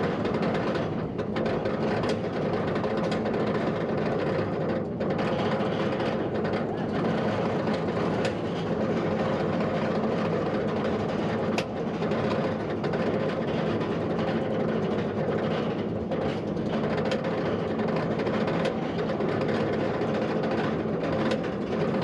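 Chain lift of a steel roller coaster hauling the train up the lift hill: a steady mechanical clattering drone with scattered clicks.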